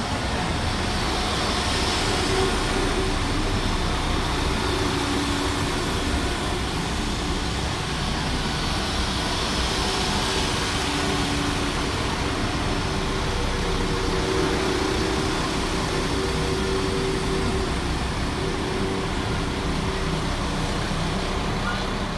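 West Midlands Railway Class 172 Turbostar diesel multiple units running into the platform: a steady rumble of wheels on the rails with the hum of the underfloor diesel engines.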